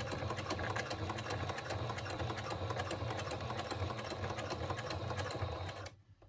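Domestic sewing machine stitching steadily at an even speed through the layered end of a bag strap, with rapid regular needle strokes; it stops abruptly near the end.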